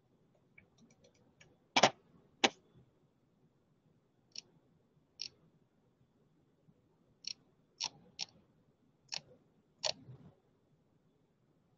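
About ten sharp, irregular clicks. The two loudest come close together about two seconds in, after a few faint quick ticks, and the rest are spread over the following eight seconds.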